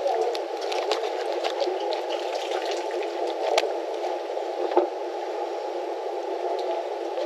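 Fillet knife cutting through a large fish on a cleaning table: scattered small clicks and scrapes of the blade over a steady hiss.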